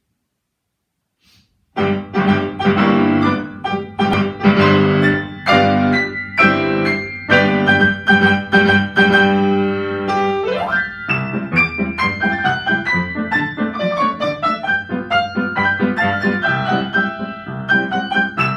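Upright piano played four hands, a galop: after a short silence it starts with loud, repeated chords, sweeps up in a quick run about ten seconds in, then goes on in fast running notes.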